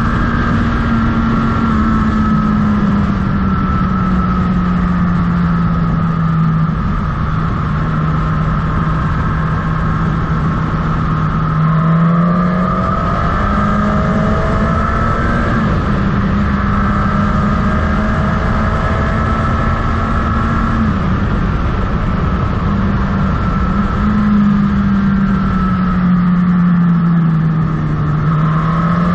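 Motorcycle engine running under way, with a steady low rumble of wind and road underneath. The engine note sinks slowly over the first several seconds, jumps back up a little before halfway, holds, then falls and rises again near the end.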